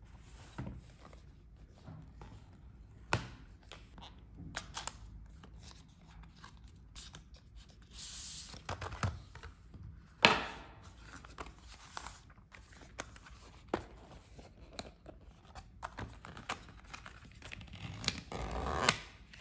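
Cardboard and paper packaging of an Apple Watch being handled and opened: scattered taps, scrapes and paper rustles, with a sharp tearing rustle about ten seconds in and a longer rustle near the end.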